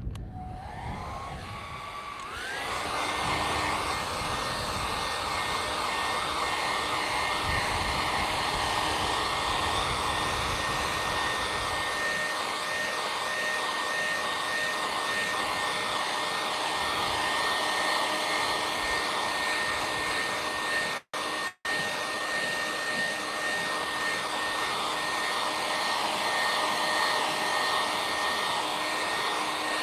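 Conair hand-held hair dryer switching on, its whine rising in pitch over the first two seconds or so as the motor spins up, then blowing steadily: an even rush of air with a high whine over it. The sound cuts out twice for an instant about two-thirds of the way through.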